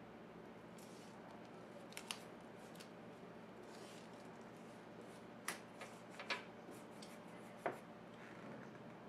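Work with tape while fixing glass panels together: a few short, sharp snips and clicks, scattered and loudest between about two and eight seconds in, over a faint steady hum.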